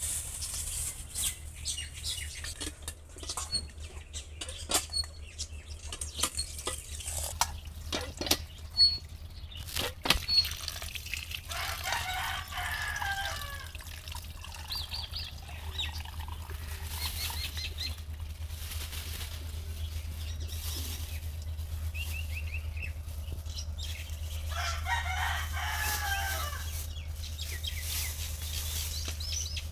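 Thin plastic bags crinkling and rustling as they are handled and emptied of raw shrimp and fish. Chickens call in the background twice, about 12 seconds in and again about 25 seconds in.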